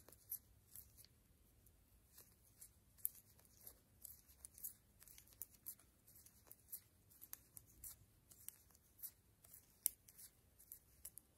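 Faint, irregular clicks and ticks of thin metal knitting needles knocking together as a row of knit stitches is worked.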